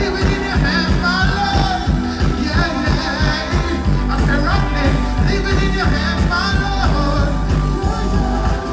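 Live dancehall music played loud through a concert sound system, heard from among the crowd: a vocalist over a steady beat, with a heavier, sustained bass from about four seconds in.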